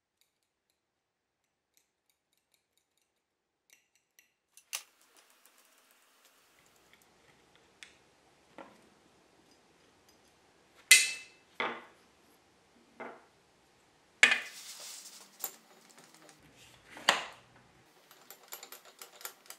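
Metal vise parts clanking and clinking as they are handled on a workbench. After a few silent seconds come light clicks, then a handful of sharp knocks in the second half, one followed by a short scrape, and quick ticking near the end.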